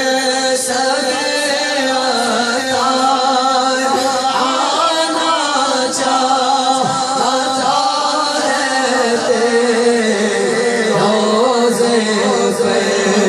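A man's voice singing a naat, an Urdu devotional poem to the Prophet, in long held notes that waver and turn between syllables.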